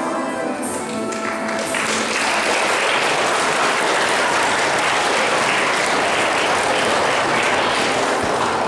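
Music with held notes ends a second or two in, and an audience claps steadily after the performance.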